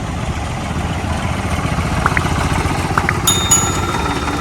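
Ford 3600 tractor's three-cylinder diesel engine running steadily as the tractor is driven along, with a few brief high chirps partway through.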